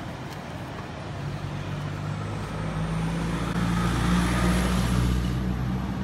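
A motor vehicle driving past on the road, its engine hum growing louder to a peak about four seconds in and then fading away.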